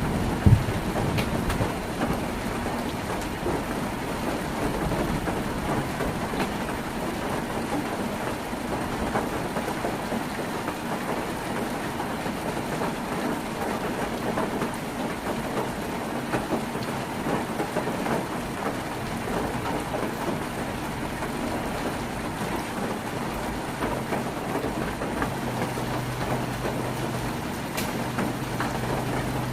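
Heavy rain on a tin roof: a steady, dense patter of drops on sheet metal. A low steady hum comes in near the end.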